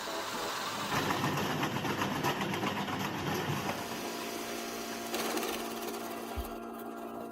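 Wood-processing machinery running with a fast, steady mechanical rattle; a steady hum joins about four seconds in.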